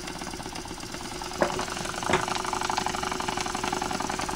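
PM Research double-acting oscillating steam engine running on low-pressure steam of about 1 to 2 PSI from a homemade soup-can boiler, making a fast, even clatter. Two sharper clicks come about one and a half and two seconds in.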